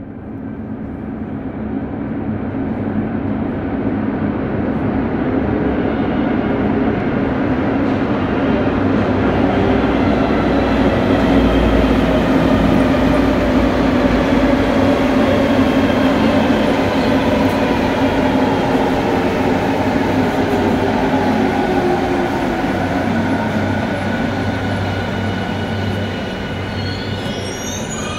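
Mexico City Metro train pulling into an underground station, its rumble swelling as it comes alongside. Several whining tones fall in pitch as it brakes and slows, with short high squeaks near the end.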